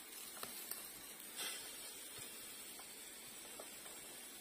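Faint steady sizzling hiss from zucchini waffles cooking in an open electric waffle maker, with a few light ticks and a brief louder hiss about a second and a half in.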